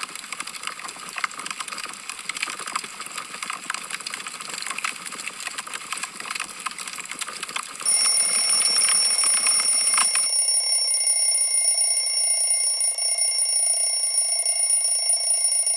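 Wood fire crackling and popping, then about eight seconds in a timer alarm starts: a loud, steady, high-pitched ringing that runs on after the crackle stops a couple of seconds later. The alarm signals that the countdown has run out.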